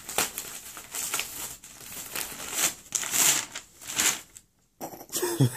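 Plastic mailer bags crinkling and rustling as a plastic-wrapped package is pulled out of a cut-open poly mailer, in a run of crackly bursts that stops about four seconds in.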